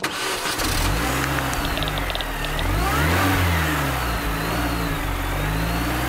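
Car engine starting abruptly, then revving, its pitch rising and falling a couple of times before it runs steadily.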